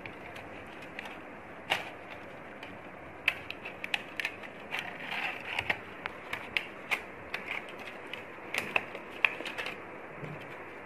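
Irregular sharp clicks and taps of plastic and metal parts being handled and shifted inside an opened projector, coming in quick clusters through most of the stretch, over a steady background hiss.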